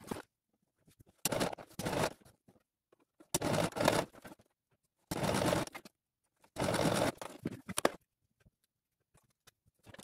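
Sewing machine stitching through felt in four short runs of about a second each, with silent pauses between them.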